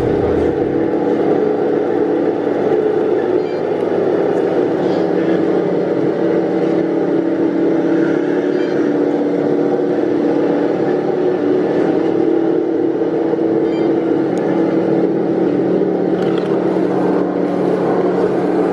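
Engine sound of a Tamiya 1/16 Centurion radio-controlled tank, played by its sound unit, running at a steady pitch while the tank drives.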